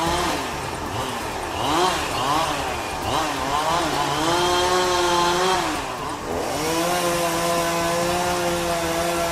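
Two-stroke chainsaw engine revving, its pitch rising and falling several times, then held at high speed. Its pitch drops briefly about six seconds in, then it runs on at a steady high speed.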